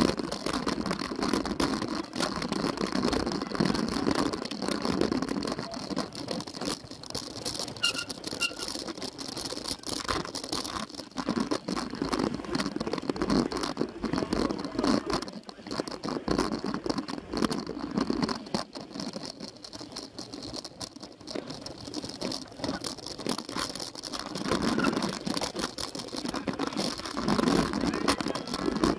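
Cyclo-cross bike and its mounted camera rattling and clattering non-stop over a rough dry dirt course, with a rumble of tyres on the ground.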